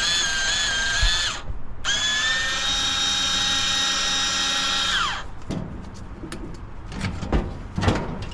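Power drill running at steady speed with a high whine, stopping briefly about a second and a half in, then running again and winding down about five seconds in. A few separate knocks and clatters follow.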